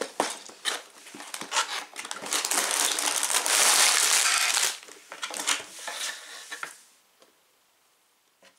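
Cardboard Lego box being opened and the plastic bags of bricks pulled out onto a table: rustling and crinkling of plastic with small clicks of loose bricks, loudest for a couple of seconds in the middle as the bags slide out, then fading out about seven seconds in.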